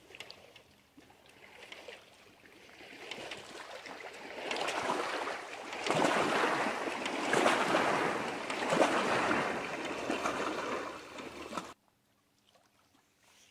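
Small wind-driven lake waves lapping and splashing against a dock, building over several seconds into a steady wash of water, then cutting off abruptly near the end.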